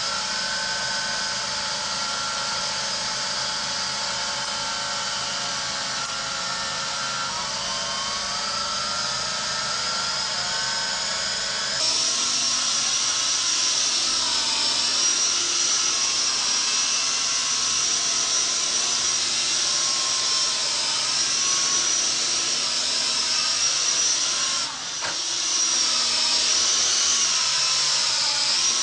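The small electric motors and double coaxial rotors of a toy RC Chinook helicopter whine steadily, their pitch shifting a little with the throttle. The whine gets louder about twelve seconds in and dips briefly a few seconds before the end.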